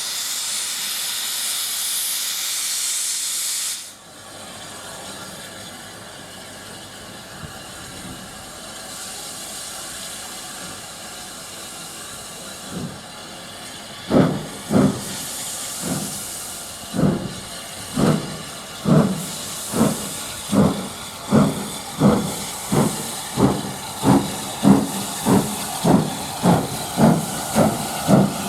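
Steam locomotive: a loud hiss of escaping steam cuts off suddenly about four seconds in. About halfway through, slow exhaust chuffs begin and steadily quicken as the engine starts away.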